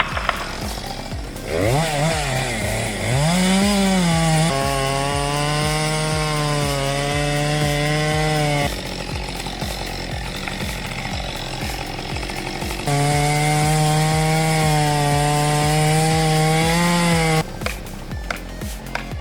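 Chainsaw revving up and then running at a steady high speed under load, in two long runs of about four seconds each with a pause between. Background music with a steady beat plays underneath.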